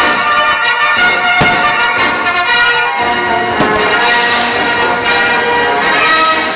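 Loud orchestral music with brass and bells, broken by sharp firework bursts about a second and a half in and again a little past three and a half seconds.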